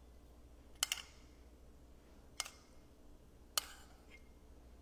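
Metal spoon clinking lightly against a small ceramic cup while stirring dressing. There is a quick double click about a second in, then single clicks every second or so, over a faint low hum.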